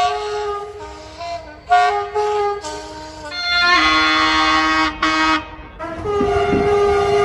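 A short tune of chords that change pitch several times, settling about six seconds in on a held chord over a low rumble.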